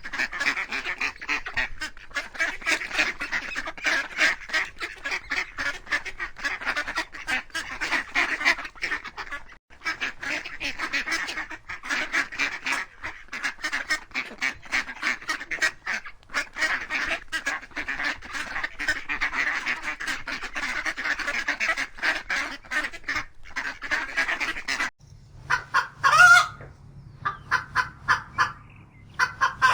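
A flock of geese honking: many overlapping, rapid calls without pause. Near the end the chorus stops and a few separate, louder calls follow.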